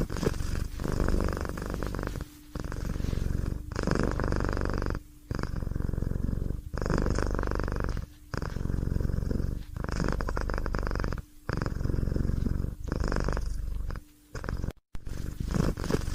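Domestic cat purring, a low rapid rumble that swells and breaks in even cycles about every one and a half seconds with short pauses between.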